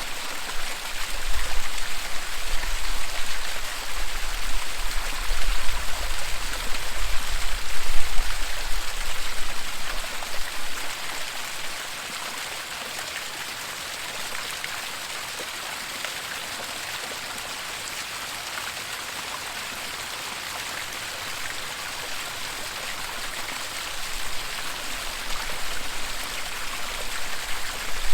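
Waterfall: a steady, dense rush of falling water. An uneven low rumble comes in about a second in, fades out about ten seconds in, and returns near the end, making the loudest moments.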